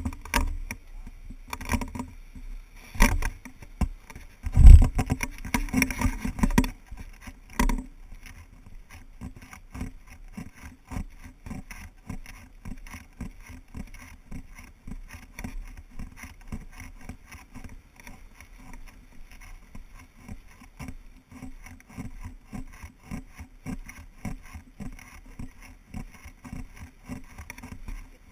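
Hikers' footsteps on a dirt trail, with the knocks and rattle of a handheld pole-mounted camera as it is carried along. Several louder bumps come in the first few seconds, then the steps settle into an even patter.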